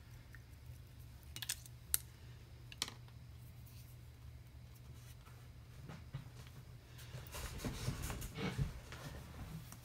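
A few faint sharp clicks, then a few seconds of soft rustling and handling noise, over a low steady hum.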